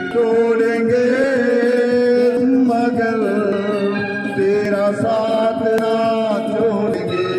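Harmonica (mouth organ) playing a film-song melody in long held notes that slide between pitches, with chords sounding under the tune.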